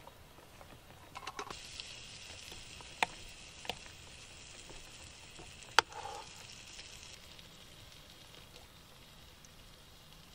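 A rice paddle working through freshly cooked rice in a compact box-shaped electric rice cooker, with a few sharp clicks of the paddle against the pot, the loudest about six seconds in. A steady hiss runs underneath and cuts off suddenly about seven seconds in.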